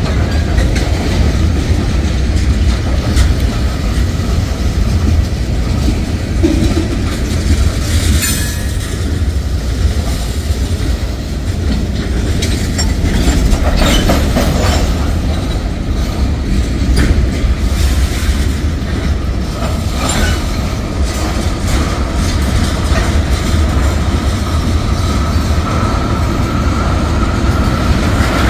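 Freight cars (tank cars, boxcars and covered hoppers) rolling past close by in a steady rumble, wheels clacking over rail joints with scattered clanks. A thin, steady wheel squeal comes in over the last third.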